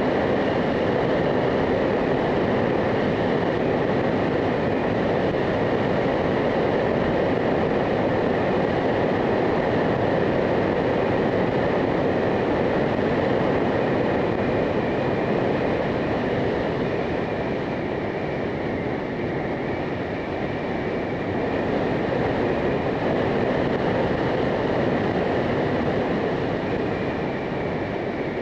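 A motorcycle under way, its engine, road and wind noise blending into a steady rush that eases slightly a little past halfway and then picks up again.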